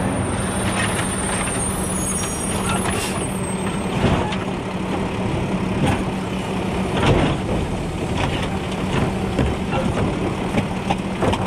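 Automated side-loader garbage truck running at the curb while its hydraulic arm grabs, lifts and tips a polybin into the hopper, with a steady hum under the work. There are clunks as the bin is dumped, the loudest a few seconds in and about two-thirds of the way through.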